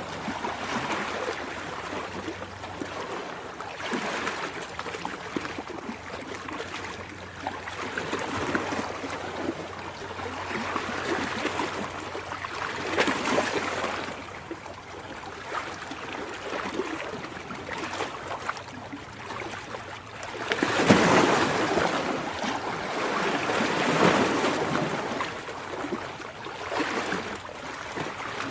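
Ocean waves washing in, in surges that swell and fade every few seconds, the biggest about two-thirds of the way through.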